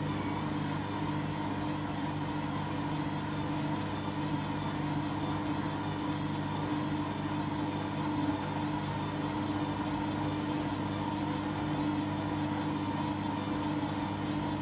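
Candy washing machine spinning a half load of bedding, its drum and motor running at a steady speed with a constant hum. The load is out of balance.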